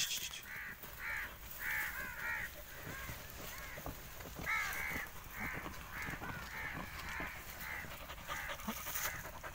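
Crows cawing over and over, short harsh calls coming two or three a second without a break.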